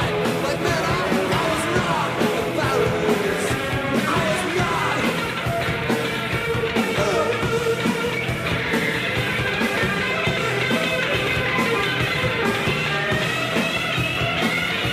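Punk/industrial rock band playing steadily, with electric guitar, drums and singing.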